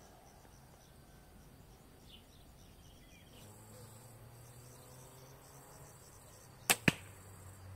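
A homemade 44-inch fiberglass takedown bow being shot: two sharp cracks about a fifth of a second apart near the end, the string snapping forward on release and the arrow striking the target. Faint insect chirping underneath.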